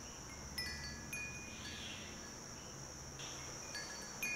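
Faint, scattered chime notes: short, high bell-like tones sounding now and then, over a steady high hiss.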